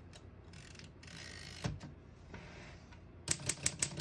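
1952 Underwood Leader portable typewriter: short mechanical rasps from the carriage and line-space mechanism with a single knock, then rapid key strikes starting near the end, about six a second.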